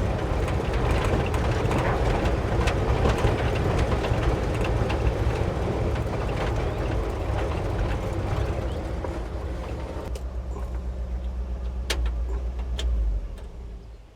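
Ford F600 truck driving, steady engine and road noise; it quietens about two-thirds of the way through and the engine rumble dies away near the end.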